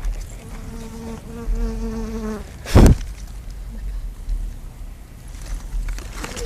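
A flying insect buzzing past with a steady low hum for about two seconds. Just under three seconds in, a short, loud burst of noise.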